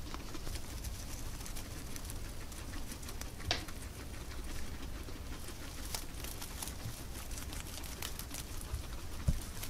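Guinea pigs eating hay: crisp crunching and chewing of dry hay stems with light rustling. There is a sharper click about three and a half seconds in and a low thump near the end.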